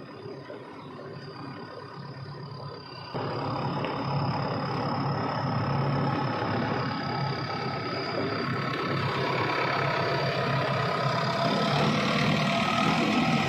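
Heavy diesel machinery engine running, jumping suddenly louder about three seconds in and holding there, with a steady high whine over it.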